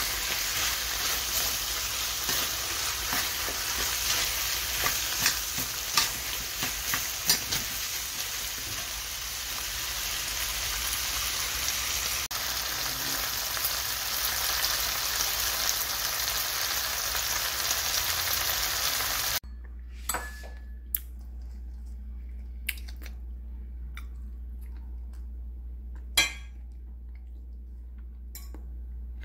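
Pork, onions and Korean green peppers sizzling in a stainless steel frying pan while a wooden spatula stirs them, with a cluster of knocks against the pan around six seconds in. About two-thirds of the way through the sizzling cuts off suddenly, leaving a quiet room with a few light clicks.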